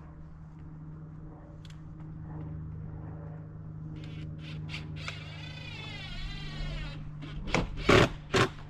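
A rooster crows once, a long call of about two seconds that falls away at the end, over a steady low hum. Near the end come three sharp knocks, the loudest sounds here.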